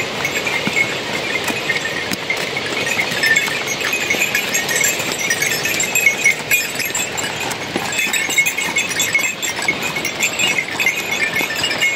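A flock of sheep and goats on the move: a steady mix of many small hoof clicks and animal calls.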